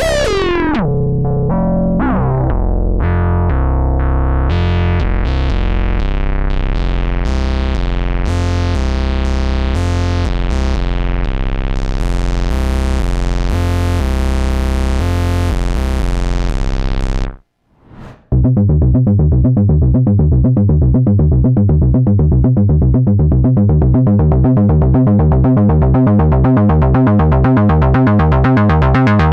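Moog Subsequent 25 analog synthesizer playing a sequenced oscillator-sync patch, a pattern of bright notes each falling away quickly. It stops suddenly about 17 seconds in, and after a short pause a fast, evenly repeating synth bass sequence starts.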